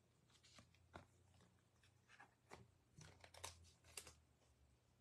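Near silence with faint, scattered clicks and rustles of trading cards and foil pack wrappers being handled.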